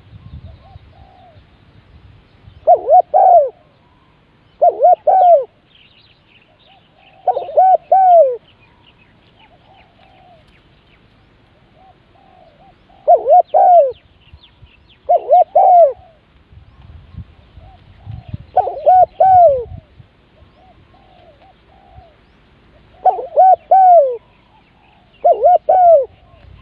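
Spotted dove cooing: eight loud phrases of a few bowed notes each, coming every two to five seconds, with fainter coos from another dove in between.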